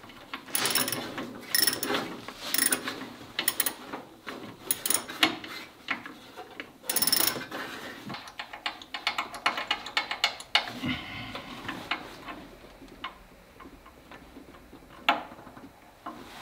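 Ratchet wrench clicking in short quick runs as a fuel pump mounting bolt is backed out of a Willys CJ2A Jeep engine block, the clicks growing lighter and sparser in the second half, with one sharper click near the end.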